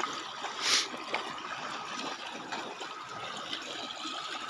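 Shallow water lapping and trickling at the shoreline as a hooked carp is led to a landing net, with a short splash just under a second in.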